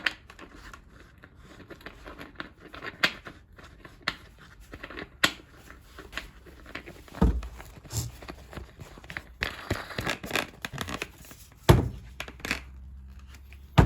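Swapping the pad on a car-polishing machine: irregular clicks and handling knocks, tearing and crinkling noises, and two dull thumps, the second about two seconds before the end.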